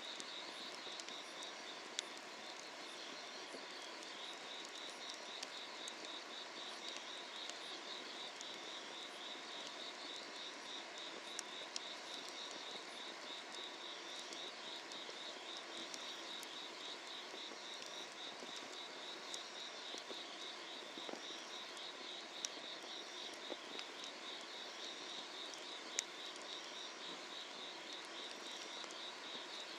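Night insects singing a steady, pulsing trill, with a few sharp pops from a crackling wood fire.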